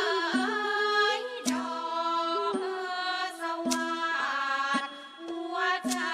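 Thai classical ensemble music: a melody held in long, stepping notes over the ensemble, with a sharp beat stroke about once a second.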